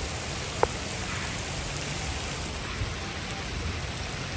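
Steady rain falling, with a single sharp tap about half a second in.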